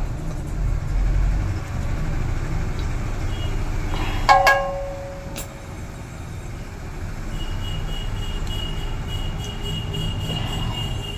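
Steady low rumble, with one short, loud pitched toot about four seconds in and a faint high steady tone in the second half.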